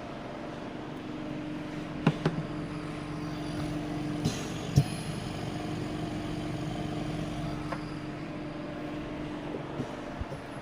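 Oxygen concentrator running: a steady compressor hum with a few sharp clicks and a brief hiss of air about four seconds in.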